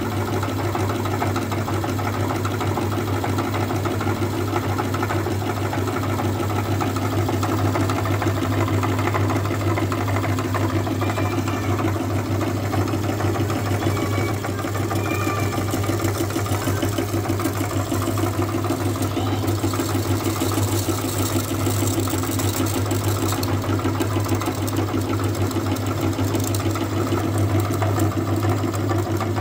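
Motor-driven meat grinder running steadily with a constant hum, its auger and plate grinding water beads (Orbeez) into crushed gel.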